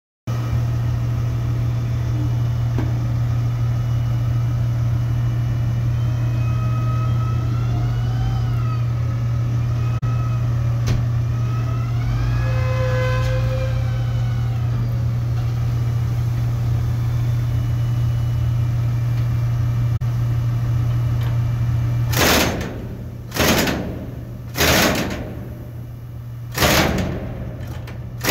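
Steady low drone of heavy machinery, with faint whining tones that rise and fall in the middle. Near the end the drone drops away and four loud hissing rushes follow, each fading out.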